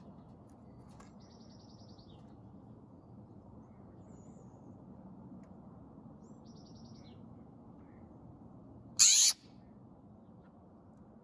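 Wild birds calling: two short, rapid high trills, then one loud, harsh call lasting about a third of a second near the end.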